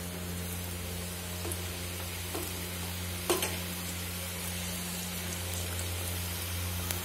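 Samosas deep-frying in hot oil in a steel pan, just dropped in: a steady sizzle with a few sharp pops, the loudest about three seconds in.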